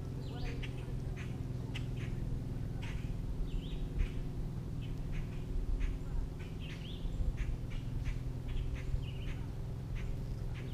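Short chirps and sharp clicks scattered irregularly, a few of the chirps sliding quickly in pitch, from birds calling in the woods, over a steady low hum.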